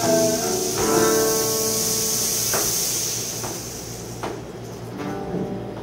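Live instrumental accompaniment on plucked strings, guitar-like: a chord struck about a second in, then single notes roughly a second apart, growing quieter.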